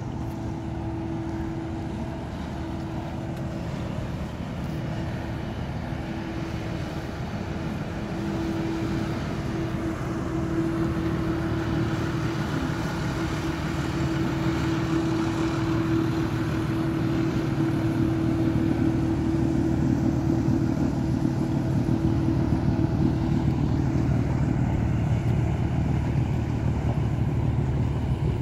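A river motor ship's diesel engine running steadily as the ship passes close by: a constant droning hum that grows louder about a third of the way in.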